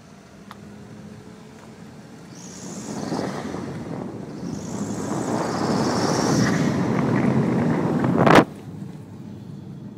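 Skoda Octavia vRS engine revved from a cold start: the noise builds over several seconds with a high-pitched squeak or hiss in it twice, then a single sharp crack about eight seconds in, after which it drops back. This is the strange noise that appears only when the engine is cold and revved quickly.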